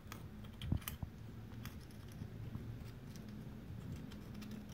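Scattered light scratches and clicks of a flat screwdriver scraping carbon deposits from the exhaust port of a Suzuki Thunder's cylinder head, over a faint steady low hum.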